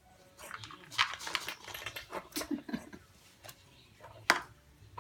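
Irregular clinks and scrapes of dog food being worked into bowls, ending with one sharp click about four seconds in.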